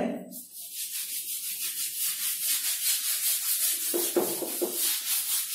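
Whiteboard eraser rubbing across a whiteboard in quick back-and-forth strokes, wiping off marker writing.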